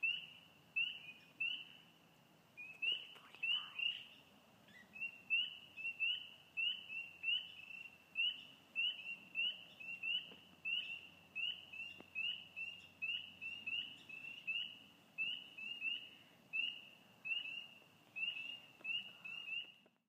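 Spring peepers calling: short, high, upslurred peeps repeated about twice a second, several frogs' calls overlapping in a small chorus.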